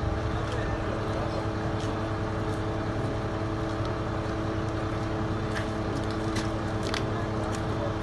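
An engine idling steadily, with a few faint clicks and knocks over it.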